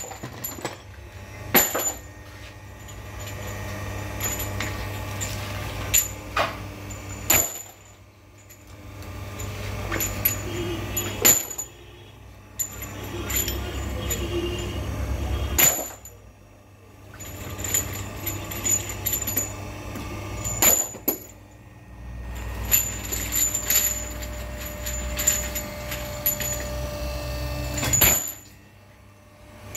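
Hydraulic hose crimping machine's pump motor running with a steady hum in spells of several seconds, cutting out briefly about five times as the fittings are crimped onto the hose in cycles. Sharp metal clinks of fittings and die parts being handled come between the cycles.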